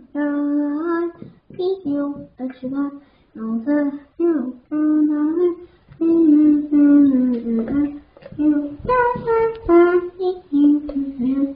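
A child's voice singing a tune in short phrases of held notes, with brief pauses between phrases.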